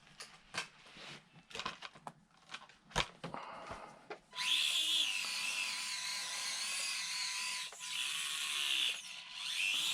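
Tiny electric motor and gearbox of an Axial SCX24 1/24 scale RC crawler whining as it drives, its pitch wavering with the throttle. It starts about four seconds in, after a few light clicks and knocks.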